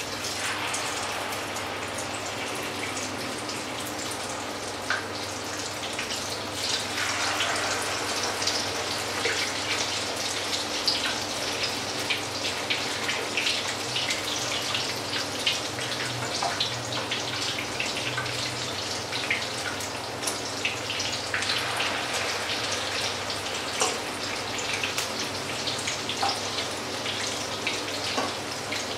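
Spoonfuls of batter frying in hot oil in a frying pan: a dense, crackling sizzle of spitting oil that swells up three times.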